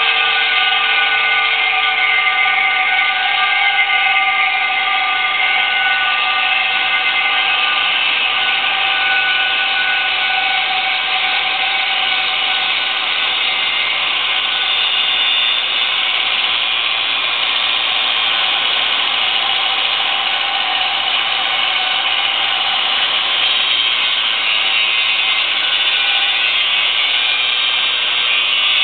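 Angle grinder with a grinding disc held against a steel dyno roller, grinding steadily without a break. The disc is set at an angle so it also drives the roller round as it grinds, prepping the surface for gritting. Even metallic grinding noise under a steady whine.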